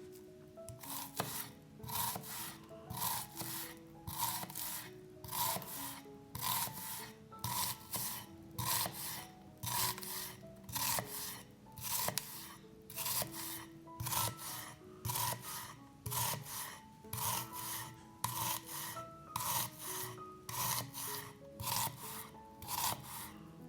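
Food being grated by hand on a metal grater: an even run of rasping strokes, about two a second, with soft background music underneath.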